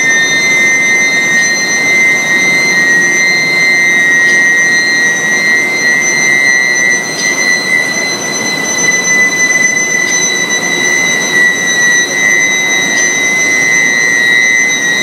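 Induction billet heating furnace running: a steady high-pitched whine made of several tones near 2 kHz, over an even rushing noise.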